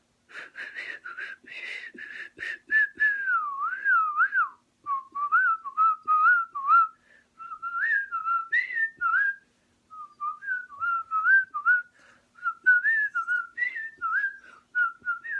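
Whistling: one wavering melodic line that slides up and down in short phrases with brief breaks. It sounds breathy for the first couple of seconds.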